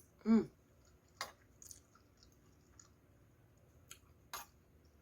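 Close-miked eating sounds: a brief hummed vocal sound just after the start, then a few scattered sharp clicks of chewing and mouth noises.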